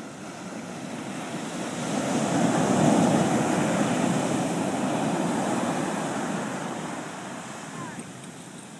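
Ocean surf: a wave breaks and washes up the beach, building to its loudest about three seconds in and dying away over the next few seconds.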